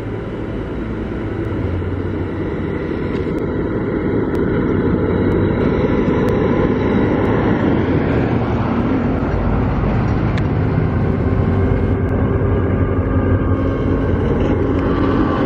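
Large diesel farm machinery running with a steady low engine hum, growing louder over the first several seconds and then holding steady.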